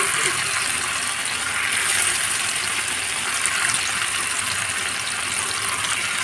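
Masala-coated fish shallow-frying in hot oil in a pan: a steady sizzle with fine crackling from the bubbling oil.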